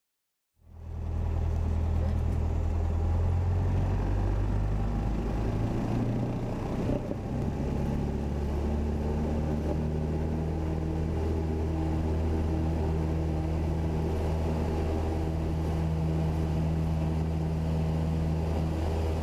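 Single-engine light aircraft's piston engine and propeller running steadily, heard from inside the cockpit during the run along the runway. The engine note shifts briefly about seven seconds in, then holds steady.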